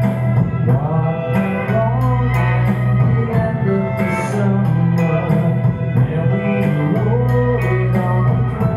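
Live rock song: a male voice singing over an electric guitar, with a steady beat of sharp percussive strokes.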